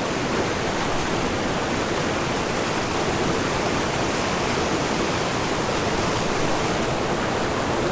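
Small mountain creek rushing over rocks, a steady close-up rush of water.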